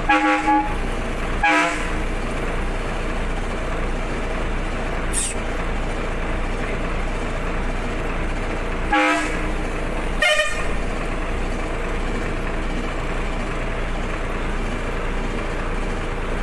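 Steady vehicle engine noise with four short horn toots: one at the start, one a second and a half in, and two more around nine to ten seconds in.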